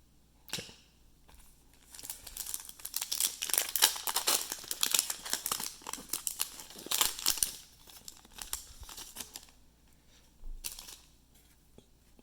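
Trading-card pack wrapper crinkling and tearing as it is opened, in a dense stretch of crackle between about 2 and 7.5 seconds, with a sharp click about half a second in and a shorter crinkle near the end.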